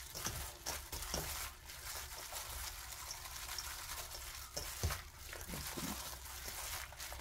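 A plastic-gloved hand tossing and squeezing dressed julienned radish and green laver seaweed in a stainless steel bowl: soft, irregular wet squishing and rustling, with one sharper thump about five seconds in.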